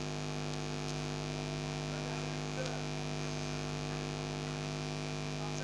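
Steady electrical mains hum: a low buzz made of several even tones.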